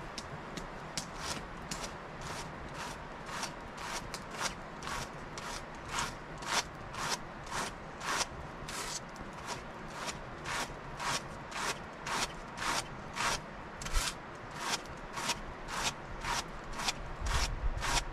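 Raw wool being hand-carded: wire-toothed hand carders drawn across each other in regular strokes, about two a second, a little louder in the second half.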